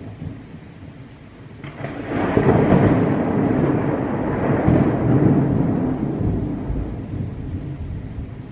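Thunder rolling over steady rain in a thunderstorm. A long rumble builds about two seconds in and slowly dies away over several seconds.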